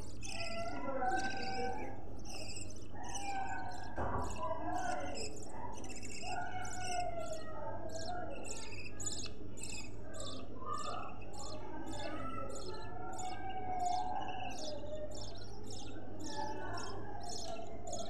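Budgerigar chicks cheeping in a steady run of short high chirps, about two or three a second, over lower warbling chatter from budgerigars.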